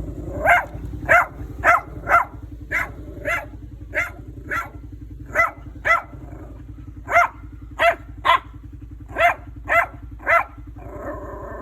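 A dog barking repeatedly, about sixteen short, sharp barks in quick runs with brief pauses between them, over a steady low hum.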